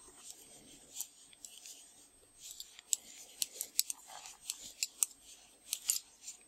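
Metal knitting needles clicking and tapping against each other in irregular light clicks as stitches are worked, with soft rubbing of yarn between them.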